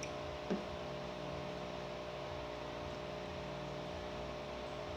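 Steady low electrical hum and hiss of room tone, with one short soft knock about half a second in.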